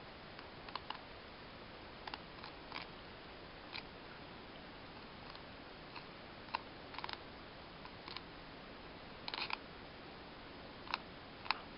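Knife blade clicking as it cuts along a largemouth bass's rib bones while filleting: scattered, irregular sharp clicks over a faint steady hiss.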